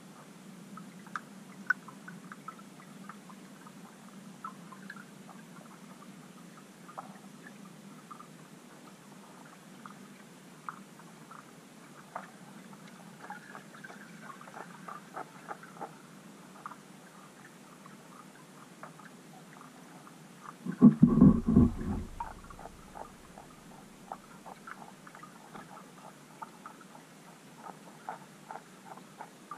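Underwater sound picked up by a submerged camera: faint scattered clicks and ticks over a low hum, and one loud low thump with a short rumble about two-thirds of the way through.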